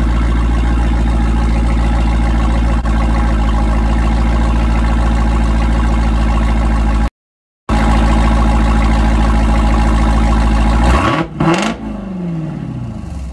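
Jeep Grand Cherokee Trackhawk's supercharged 6.2-litre V8 idling steadily through a Borla ATAK exhaust, with a half-second gap of silence about seven seconds in. Near the end the engine is blipped and then cuts out and winds down, because a remote-started engine shuts off when revved.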